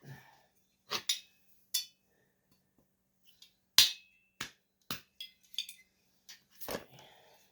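Chainsaw parts and tools being handled during a teardown: a string of sharp clicks and clinks at uneven intervals, the loudest about four seconds in.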